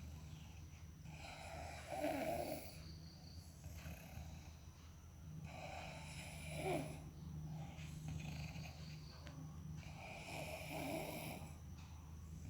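A sleeping person snoring, three snores about four seconds apart.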